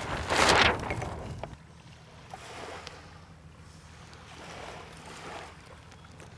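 Wind rushing over the microphone, with a loud gust about half a second in and softer gusts later over a steady low rumble.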